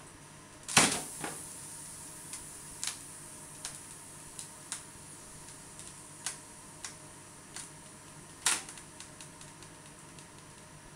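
Twisted latex modelling balloon creaking and ticking as its twists slowly unwind, with irregular sharp clicks: a loud one about a second in, another loud one past the middle, and many small ticks between.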